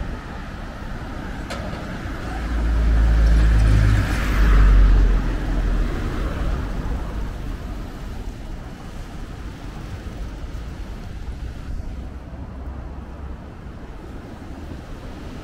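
Outdoor rumble of ocean surf breaking on coastal rocks, mixed with road traffic and low wind rumble on the microphone. It swells loudest about two to five seconds in, then eases.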